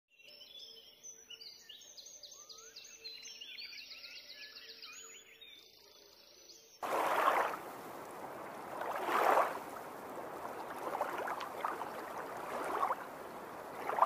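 A chorus of small songbirds, many overlapping chirps and rapid trills. About seven seconds in, it cuts abruptly to a louder rushing noise that swells every second or two.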